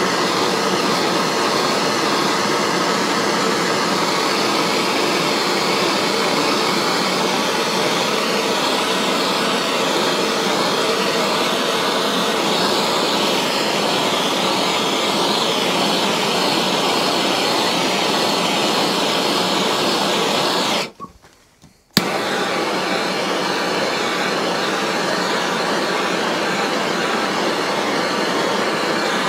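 Gas blowtorch burning with a steady, even hissing rush as its flame is swept over plastic. The sound drops out for about a second roughly three-quarters of the way through, then comes back with a click.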